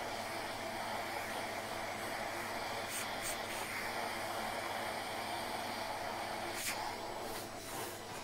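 Neakasa P0 Lite pet-grooming vacuum running steadily: an even airflow hiss with a faint hum, broken by a couple of brief clicks.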